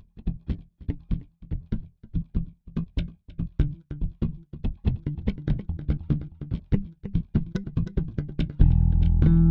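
Background music: quick, even plucked guitar-like notes, about four a second, joined near the end by bass and a fuller, louder band.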